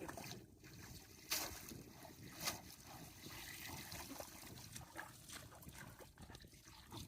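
Shallow water trickling and sloshing as it is worked by hand, with two short sharp splashes about a second and two and a half seconds in.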